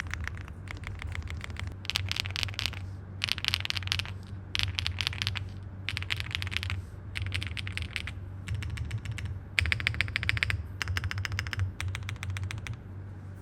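Owlab Link65 mechanical keyboard with HMX Poro switches on a POM plate, typed on in quick bursts of keystrokes with short pauses between. The typing stops near the end, leaving a steady low hum.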